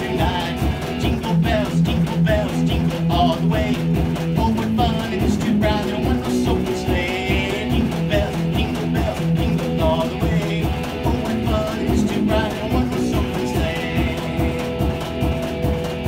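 Electric guitar playing rock licks and riffs over the steady, evenly spaced thumping of a washing machine, whose rhythm serves as the beat.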